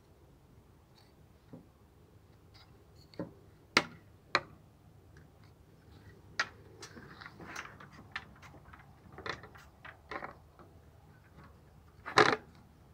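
Handling noises of a tablet mount: scattered sharp clicks and knocks of hard carbon-fibre and plastic parts, with a brief rubbing sound in the middle. The loudest knock comes near the end, as a tablet in its rugged case is pressed into the carbon-fibre cradle.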